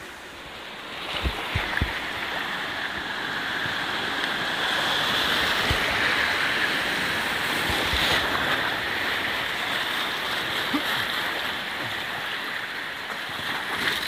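Steady rush of river rapids heard from a tube raft shooting through whitewater. The rush swells through the middle, with a few short low knocks about a second in.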